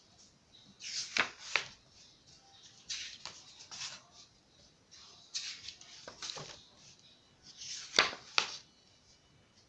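Pages of a large book turned by hand, four times. Each turn is a rustling swish of paper ending in a sharp flap, the last the loudest.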